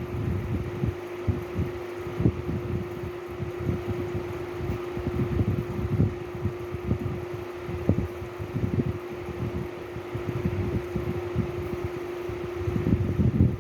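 Steady mechanical fan hum with one constant tone, over irregular low rumbling.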